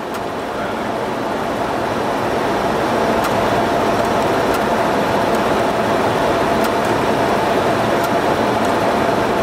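Boeing 737 flight-deck noise in flight: a steady rush of airflow and engine noise with a faint steady whine, growing slightly louder over the first couple of seconds.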